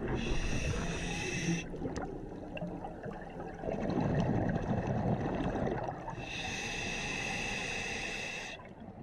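Scuba diver breathing through a demand regulator underwater: a long hissing inhale, then a low rush of exhaled bubbles, then a second long hissing inhale.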